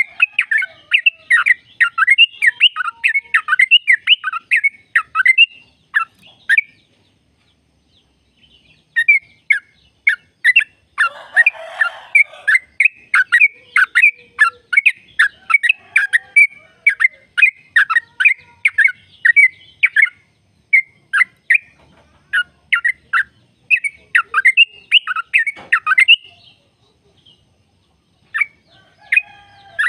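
Yellow-vented bulbul (trucukan) singing a long rapid song: fast runs of short, sharp, falling notes, about three or four a second. It breaks off for a couple of seconds about a quarter of the way in and again near the end, with a harsher, rougher note about a third of the way through.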